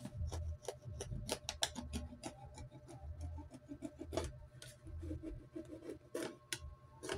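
A knife blade cutting and scraping into an empty plastic bottle near its neck, a string of short, irregular rasps and clicks.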